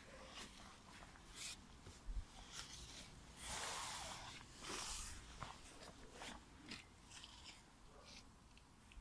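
Faint scuffing and rustling handling noise from a handheld phone being moved about. Two louder rustles come about three and a half and five seconds in. No chainsaw is running.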